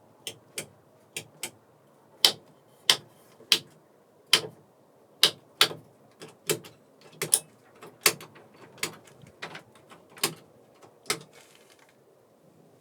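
A series of sharp clicks and knocks, irregularly spaced at one to two a second, stopping shortly before the end.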